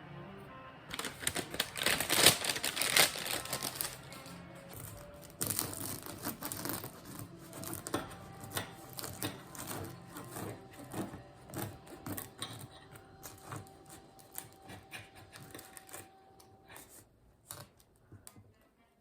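Soft background music with a run of quick clicks, taps and light rustling over it; held notes come in about eight seconds in and stop shortly before the end.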